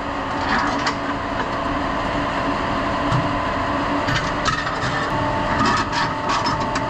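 Steady hum of running press-room machinery, with light metallic clinks and rubbing as hoist fittings and hardware are handled and fitted to the drive unit, most of them in the second half.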